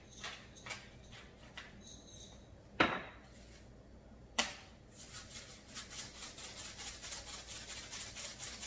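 Spice containers handled over a cooking pot: a few light clicks, a loud knock about three seconds in and another about a second and a half later, then a fast run of faint rattling ticks as seasoning is dispensed into the pot.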